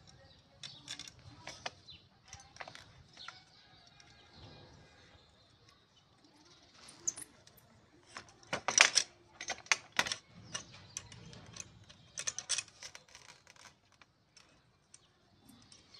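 Irregular metal clicks and taps as a guide strip is fitted and tightened onto the base plate of a switched-off handheld tile cutter, with the busiest, loudest run of clicks from about eight seconds in.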